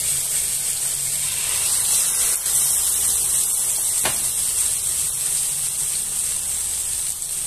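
Marinated pork belly strips sizzling in a little oil in a kawali, a steady high hiss as they sear until slightly charred. A single short click about four seconds in.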